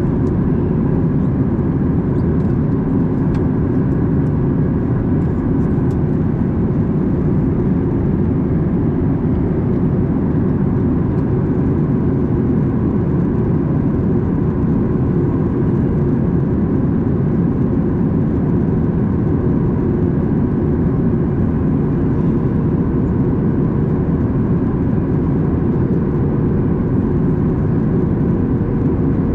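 Steady cabin noise inside a Boeing 737 MAX 8 in flight: a constant low rush of airflow and the drone of its CFM LEAP-1B turbofan engines, with a faint steady hum above it.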